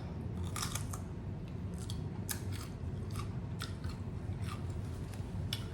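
A person chewing a mouthful of taco close to the microphone, with short crisp crunches and mouth clicks at irregular intervals.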